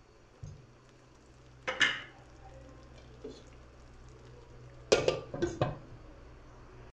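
Cookware clatter: a single sharp knock about two seconds in, then three or four quick clinks near the end as a glass lid is set down onto a coated cooking pot, over a low steady hum.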